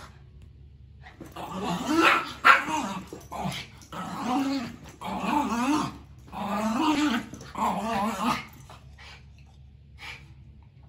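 A Maltese and a Shih Tzu–poodle cross play-fighting, with a run of growls and barks that start about a second in and die away a couple of seconds before the end.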